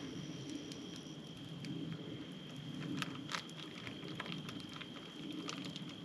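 Wood campfire crackling with scattered sharp pops, the two loudest about three seconds in, and food sizzling on a grill grate over the flames.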